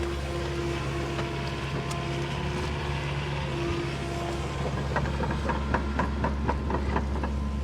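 Excavator's diesel engine running steadily under load while digging. In the last couple of seconds it is joined by a quick run of clicks, about four a second.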